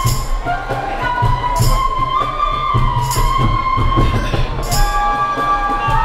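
Several bansuri (bamboo transverse flutes) playing a melody together in long held notes, with a tambourine jingling in time about every one and a half seconds over a steady low beat.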